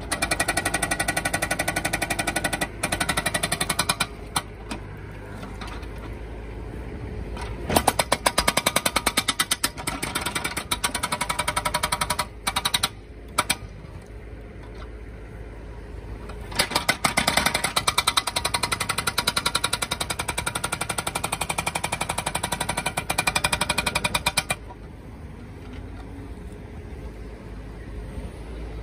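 Demeter 85 hydraulic breaker on a Bobcat E19 mini excavator hammering in long runs of rapid blows, breaking up street pavement, with short pauses between runs. Near the end the hammering stops and only the excavator's diesel engine is heard running.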